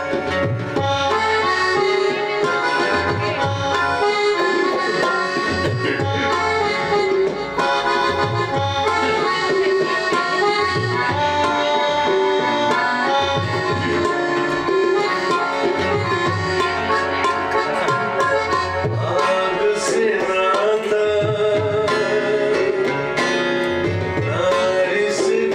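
Live South Asian traditional music: tabla playing a steady rhythm under a sustained free-reed melody.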